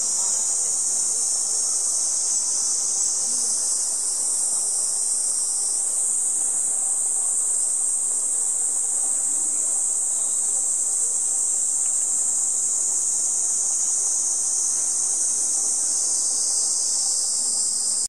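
A chorus of cicadas singing: a steady, unbroken high-pitched drone.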